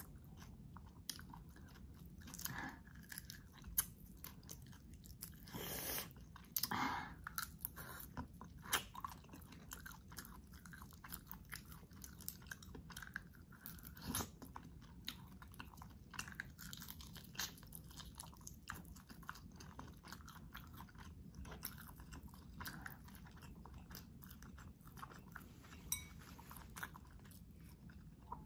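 Close-miked chewing and crunching of shell-on garlic butter shrimp: many sharp crunches and wet mouth sounds, irregular throughout, with one louder, longer stretch about six seconds in.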